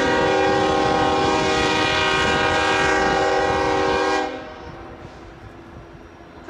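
Union Pacific SD70ACe diesel locomotive's multi-chime air horn sounding one long steady blast of about four seconds that cuts off, with a second blast starting right at the end, a grade-crossing warning as the train approaches the street crossing.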